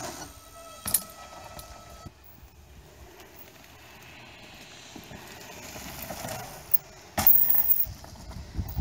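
Mountain bike landing off a wooden drop with a sharp thud about a second in, then its tyres running over a dirt trail. A short, loud burst of rushing noise comes near the end.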